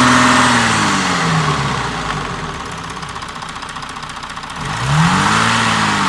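Audi 3.0 TDI V6 diesel engine idling in the engine bay and blipped twice. Its revs fall back to idle in the first second and a half, then rise and fall again about five seconds in. The mechanics put its knocking noise down to a failing timing chain tensioner.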